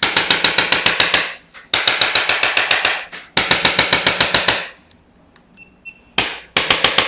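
Handheld percussive adjusting instrument tapping rapidly on the upper back, with sharp clicks at about ten a second. It comes in runs of about a second each, three in a row, then a brief run and a last run near the end.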